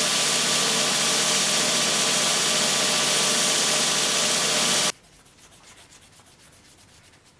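Belt grinder running with a metal sword pommel held against its abrasive belt: a loud, steady grinding hiss over a motor hum. It cuts off suddenly about five seconds in, leaving faint, rhythmic rubbing of a gloved hand on a wooden board.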